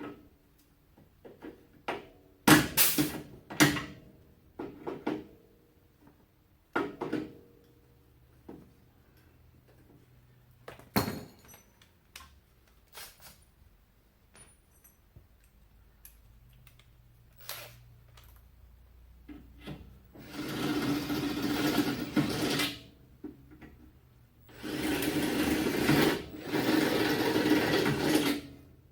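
Power drill boring holes in sheet metal for plug welds, running in two spells, about two and then four seconds long, near the end. Before that come scattered knocks and clanks of parts being handled.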